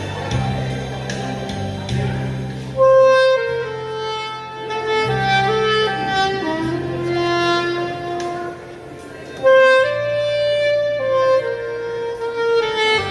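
Saxophone playing a slow ballad melody live over a backing track with held bass notes. The melody comes in about three seconds in, with long held notes, pauses briefly, and resumes near the middle.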